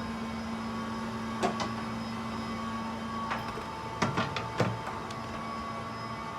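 Steady machine hum with a few held tones, broken by sharp clicks about a second and a half in and a quick cluster of knocks past the middle.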